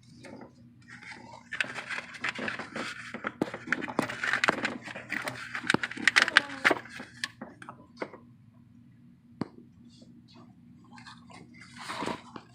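Clicks and rustling of parts being handled by hand, busiest for several seconds before thinning to a few scattered clicks, over a steady low hum.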